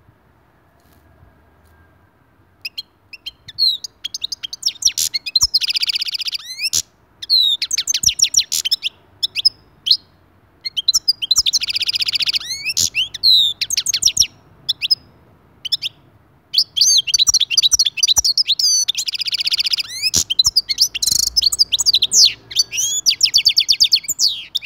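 European goldfinch singing: phrases of rapid, fast-gliding twittering notes with short pauses between them, broken by three longer buzzy notes. The song starts a few seconds in.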